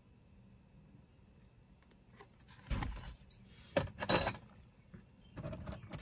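Metal costume jewelry clinking and jangling in a wooden box as a hand rummages through the pile. It comes in three short bursts in the second half, the loudest a little after four seconds in.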